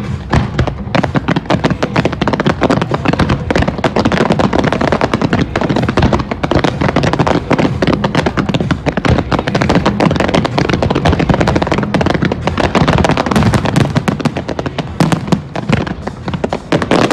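Aerial fireworks display: a dense, unbroken barrage of shell bursts and crackling stars, sharp bangs following each other many times a second.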